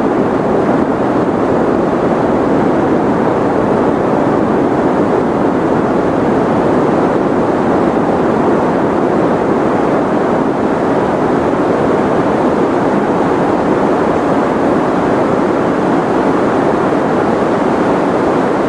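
Continuous white noise played as a sleep aid: a steady, even, muffled rushing hiss, strongest in the low and middle range with little high treble, unchanging throughout.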